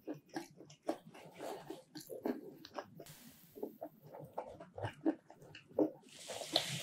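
Close-miked chewing of a folded slice of pineapple cheese pizza: irregular short mouth clicks and smacks, with a brief hissing noise near the end.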